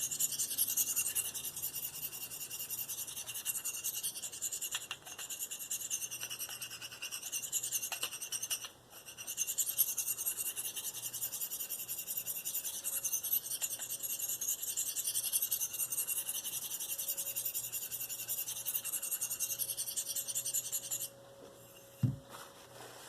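Steel knife blade being stroked lightly across a Spyderco 302F fine ceramic sharpening stone in freehand sharpening: a continuous high, scratchy rasp. The rasp stops suddenly near the end, followed by one soft knock.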